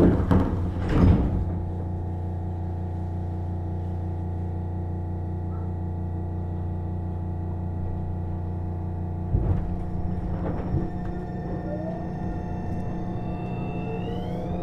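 Tobu 30000-series electric commuter train: doors sliding shut with a thud within the first second, then a steady electrical hum while it stands. About nine seconds in, a couple of knocks, then the traction motors' whine begins rising in pitch as the train starts to pull away.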